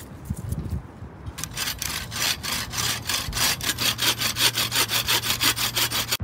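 A hand tool cutting wood in fast, even rasping strokes, about five a second. It starts about a second and a half in and stops abruptly at the end.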